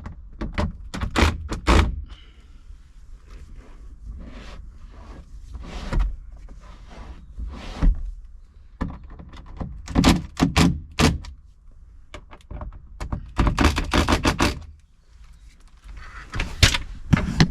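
Repeated knocks and thumps of a roof console being hammered into place against a Land Rover Defender's cab roof, coming in several bursts of quick strikes with short pauses between.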